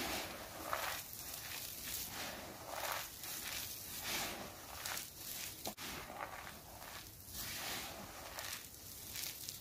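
Hands squeezing and scooping a heap of crushed dry soap chips mixed with starch, giving repeated crunchy rustles about once a second, with one sharp click near the middle.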